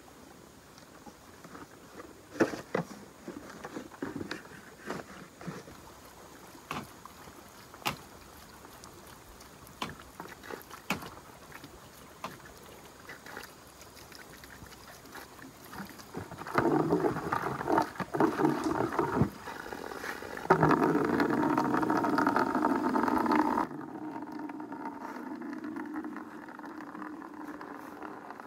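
Water poured out of a plastic bucket onto soil in two long pours, after a few scattered knocks.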